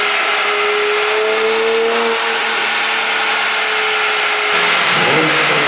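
Porsche Panamera 4 E-Hybrid's twin-turbo V6 engine revving, held at a steady raised speed, then falling off and revving again about four and a half seconds in.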